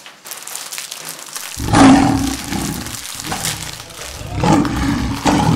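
A man's loud, drawn-out roaring yell that breaks in suddenly about one and a half seconds in, followed by more loud shouting.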